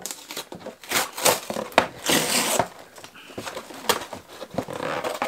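Cardboard snack-cake box being torn open along its tear strip: a ripping tear about two seconds in, amid scattered clicks and crinkles of the cardboard.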